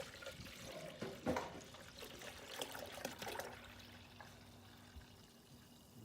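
Water being poured into a car's cooling system while it is filled, a faint trickling pour that swells unevenly in the first few seconds and then fades to a lighter trickle.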